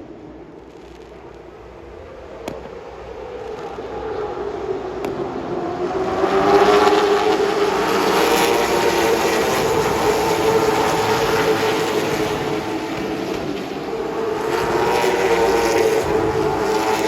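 Late model stock cars' engines running at racing speed around the oval, the sound building over the first few seconds and then staying loud, its pitch rising and falling gently as the cars circulate.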